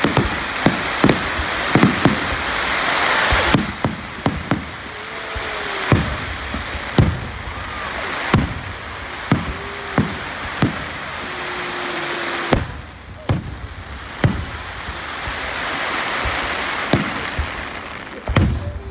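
Aerial firework shells bursting in a display: repeated sharp bangs, about one or two a second. Between them runs a crackling hiss that swells in the first few seconds and again near the end.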